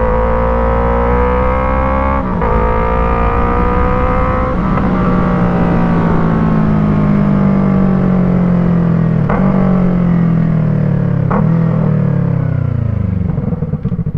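Yamaha MT-03's 321 cc parallel-twin engine through an Arashi aftermarket exhaust with a dB killer fitted. It pulls up through two gear changes in the first few seconds, then rolls off, the revs falling slowly through a couple of downshifts and settling toward idle near the end.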